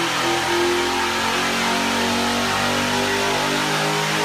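Engine running on an engine run stand, loud and continuous, its pitch shifting a little: "What a noise!"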